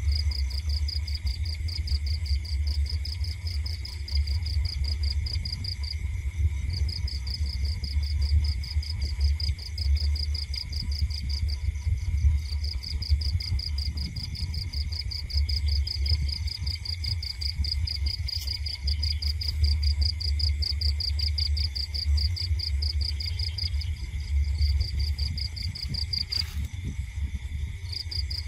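Crickets trilling in a fast pulsing chirr that breaks off briefly a few times, over a steady lower insect note and a constant low rumble.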